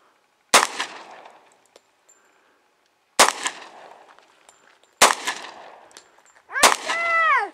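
Four gunshots fired at a target, irregularly spaced a couple of seconds apart, each trailing off in a short echo. A brief voice-like call follows the last shot.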